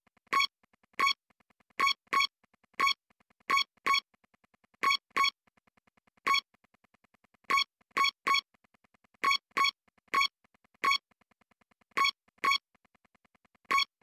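Background synth music: short, bright beeps all on one pitch in an uneven rhythm, about two or three a second, with much fainter rapid pulses between them.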